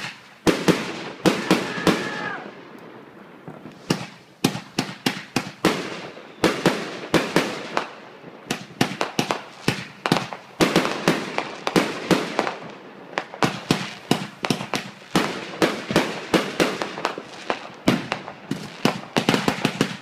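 Fireworks finale: fast volleys of sharp bangs and crackles from shells launching and bursting, in dense clusters with brief lulls about three and eight seconds in.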